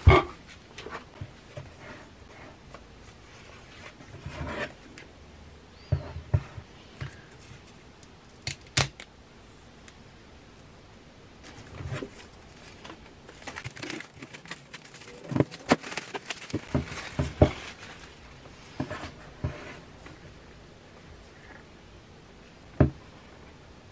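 Hands handling a boxed iPad Pro's cardboard box on a table: scattered taps and knocks with short rustles, busiest about two-thirds of the way through, and a sharp knock near the end.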